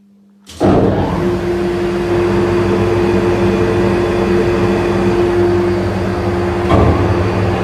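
Wolfking C-250 frozen meat grinder switched on about half a second in, then running with a loud, steady machine sound; the sound changes briefly near the end.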